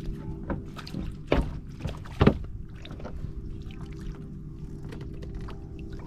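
Steady low mechanical hum aboard a small fishing boat, with a few sharp knocks of gear against the boat, the loudest a little over two seconds in.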